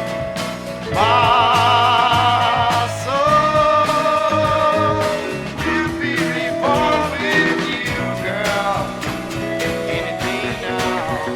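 Jazz-rock band music: a lead line of long held notes with vibrato, some sliding up into pitch, over band backing with a regular drum beat.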